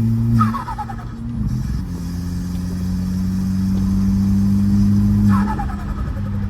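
Turbocharged VW Golf engine pulling under throttle, then the driver lifting off twice, about half a second in and near the end. Each lift brings turbo flutter with a short falling whistle as the turbo spools down.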